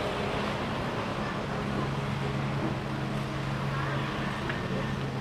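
An engine running steadily with a low, even hum, over outdoor background noise and faint distant voices.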